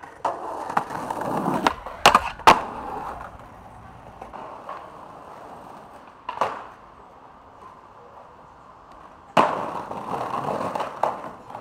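Skateboard wheels rolling in two passes, with sharp clacks of the board: two loud ones close together about two seconds in, a single one after six seconds, and a few lighter ones during the second roll, which starts about nine and a half seconds in.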